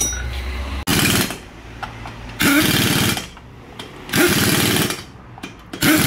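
Pneumatic impact wrench hammering on a car's wheel bolts in four short bursts of about half a second to a second each, with short pauses between them.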